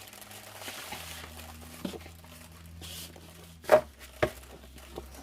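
Sheets of scrapbooking cardstock paper being handled and shuffled on a table: soft rustling and sliding, with a few sharp taps as sheets are set down, the two loudest close together near the end.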